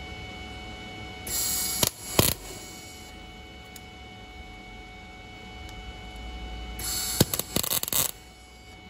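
Wire-feed (MIG) welder arc crackling and hissing in two short bursts, about a second in and again near the end, as a screw is tack-welded onto a thin steel rod. A steady electrical hum runs underneath.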